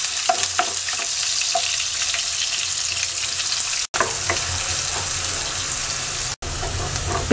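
Chopped onions sizzling steadily in hot oil with cumin seeds in a karai, with small crackles, lightly frying. The sound cuts out for an instant twice.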